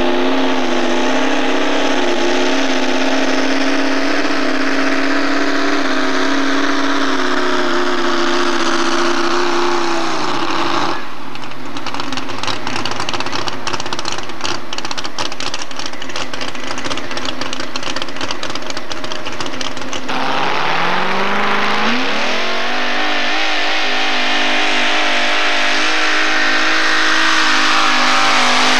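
Modified four-wheel-drive pulling truck engines at full throttle hauling a weight-transfer sled. The high engine note falls about ten seconds in, a harsher rattling stretch follows, and about twenty seconds in an engine revs sharply up and holds high.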